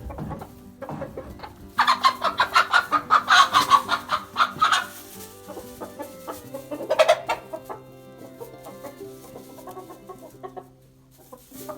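Chickens clucking: a fast run of loud, squawking clucks for about three seconds starting near two seconds in, then one more loud squawk about seven seconds in.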